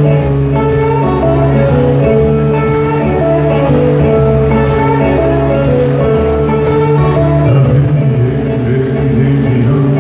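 A live rock-pop band playing through a festival PA, heard from the audience: strummed guitars and bass over a steady beat with sharp regular strikes on top.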